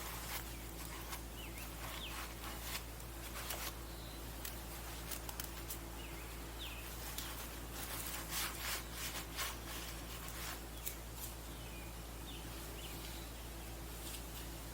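Scattered light clicks and rattles of tools and metal parts being handled while a jet ski pump is taken apart, busiest about halfway through, over a steady low hum.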